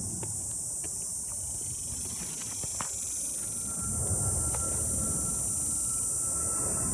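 Airplane passing overhead: a low engine rumble with a thin steady whine that comes in about halfway through and grows louder. Under it, the steady high buzz of insects.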